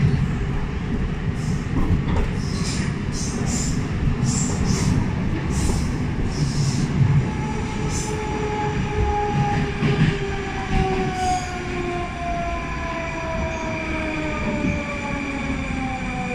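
Rusich (81-740/741) Moscow metro train heard from inside a car, running through the tunnel with loud wheel-and-rail rumble and short high wheel squeaks. From about halfway, the electric whine of the traction drive falls steadily in pitch as the train brakes into a station.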